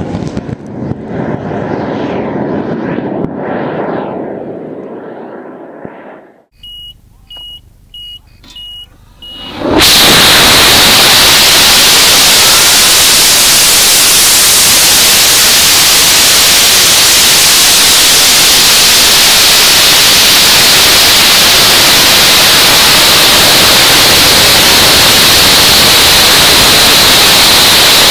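A large rocket motor's roar fading as the rocket climbs away from a pad camera. After a cut, five short high beeps from the rocket's onboard flight electronics. Then, about ten seconds in, a very loud, steady rush sets in and holds: the Aerotech M1315 motor firing and the air rushing over the rocket, heard at its onboard camera.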